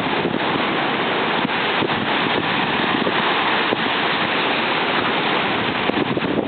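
Rough sea surf after a typhoon has passed: a steady, continuous rush of breaking waves, with wind buffeting the microphone in frequent crackling gusts.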